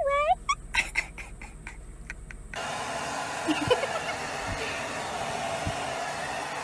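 A goat's bleat trails off in the first half second. About two and a half seconds in, a hair dryer starts blowing steadily, drying a fluffy chicken.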